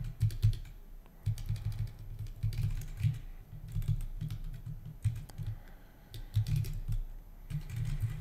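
Typing on a computer keyboard: irregular runs of key clicks and dull key thuds, with short pauses between the runs.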